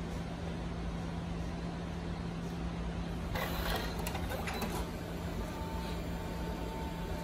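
Smart-51 PVC ID card printer starting a print job, over a constant low hum. About three seconds in comes a burst of mechanical whirring and clatter, then from about halfway through a steady motor whine.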